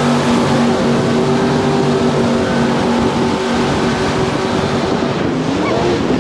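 Jet boat engine running at speed over a broad rush of water and wind noise. About five seconds in, the engine pitch dips and then starts to climb again.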